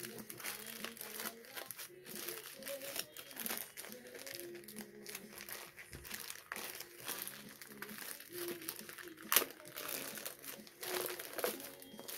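Plastic poly mailer bag crinkling and crackling as it is handled and pulled open by hand. The crackling comes in an irregular stream of small sharp bursts, and the loudest snap comes about nine seconds in.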